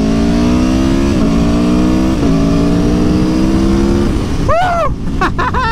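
Aprilia Tuono V4 1100 Factory's V4 engine accelerating hard, its note climbing with two quick breaks for upshifts, about one and two seconds in. A little after four seconds the throttle closes and the engine note drops away, leaving wind and road noise.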